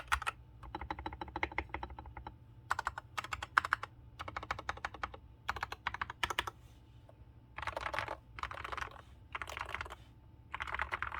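Typing on a TM680 mechanical keyboard with Gateron Red linear switches, Akko keycaps and a three-layer masking-tape mod: rapid runs of keystrokes in bursts with short pauses between them.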